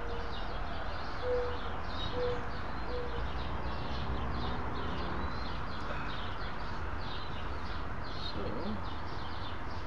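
Birds chirping over and over, with four short low hooting bird notes about a second apart in the first three seconds, over a steady low rumble.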